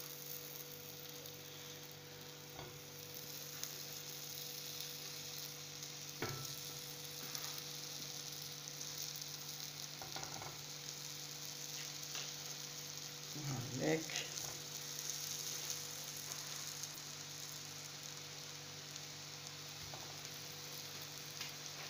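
Squares of semolina and olive-oil dough (mthakba) sizzling on a hot tajine griddle as they are laid down one after another, with a few light knocks as pieces are set on the griddle.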